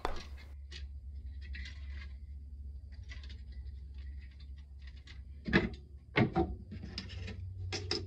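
Handling noise of a computer motherboard being slid forward off its metal mounting plate and lifted away: soft scrapes and rustles, two louder knocks a little past the middle, and a couple of sharp clicks near the end.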